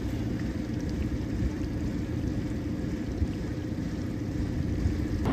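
Small boat motor idling: a steady low rumble with a faint steady hum.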